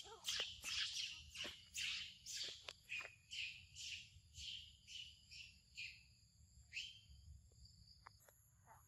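A bird calling: a long run of high whistled notes, each sliding down in pitch, about two to three a second, fading and thinning out after about seven seconds. A thin steady high tone sits behind it.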